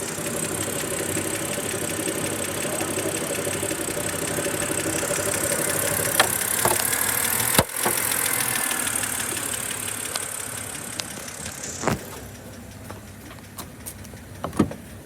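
BMW N52 inline-six engine idling with a fast, even ticking, the noise the owner is trying to cure by topping up the oil. A few sharp clacks stand out, and the engine sound drops in level after about twelve seconds.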